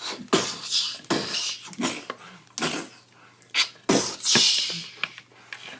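A person making mouth sound effects: a rapid string of short, sharp hissing and puffing bursts, like fight and spray noises voiced for toys.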